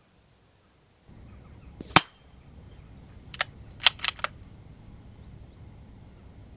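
A single sharp crack about two seconds in from a moderated .22 LR rimfire rifle shot striking a hanging steel plate target. A second and a half later comes a quick run of four lighter metallic clinks as the plate and its chains swing.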